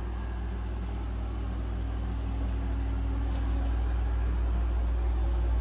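Steady, low-pitched machine hum, slowly growing louder.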